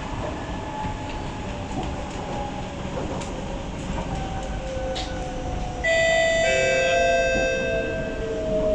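Inside a Kawasaki-CSR Sifang C151B electric train running on the rails: a steady rumble from the wheels and running gear, with a faint motor whine gliding down in pitch. About six seconds in, a much louder whine with many overtones starts suddenly and keeps falling slowly in pitch.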